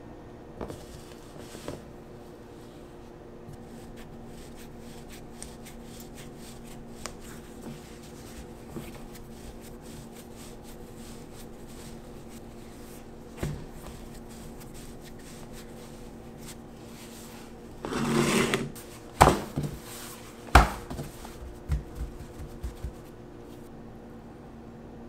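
Hands working a ball of pizza dough: soft scattered pats and taps, then a brief rustle and two sharp knocks with a few smaller taps about three-quarters of the way in, over a faint steady hum.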